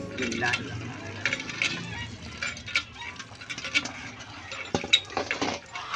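Cauliflower florets and potatoes being rubbed and swished by hand in water in a steel bowl, with many light clinks and knocks against the metal.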